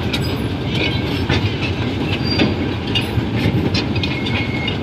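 Small museum toy train running on its small-gauge track, heard from on board: a steady rumble with irregular clicks of the wheels over the rails.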